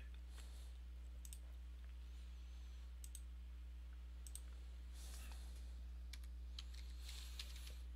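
Faint, scattered clicks of a computer mouse and keyboard, some in quick pairs and two short runs about five and seven seconds in, over a steady low hum.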